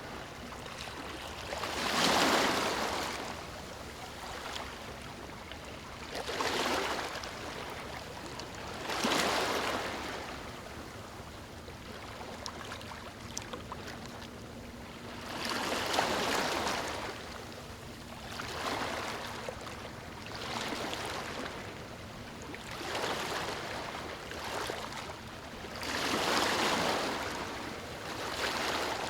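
Waves washing in: swells of rushing water noise every two to seven seconds over a steady hiss.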